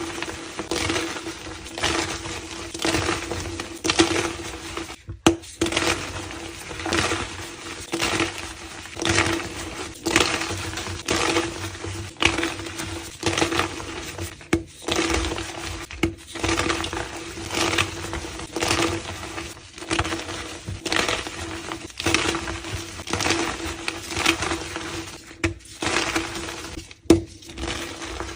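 Reformed gym chalk being crushed and crumbled in a run of crisp, crackly crunches, roughly one every second, with a couple of brief breaks between pieces.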